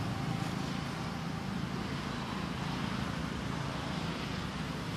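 Steady low rumbling background noise with no distinct sounds standing out.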